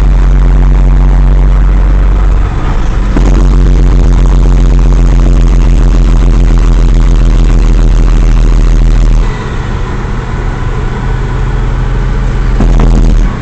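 Western Star semi truck's diesel engine running loudly inside the cab, a steady low drone. About nine seconds in it eases off and gets quieter, then swells again briefly near the end.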